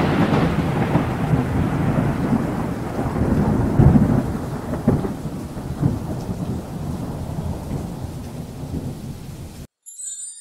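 Thunder sound effect: a long rumble trailing off a loud clap, swelling again about four and five seconds in, slowly fading, then cut off abruptly near the end.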